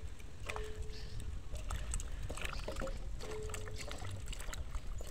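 Hands sloshing peeled potatoes around in a metal basin of water while washing them, with small scattered knocks and clicks.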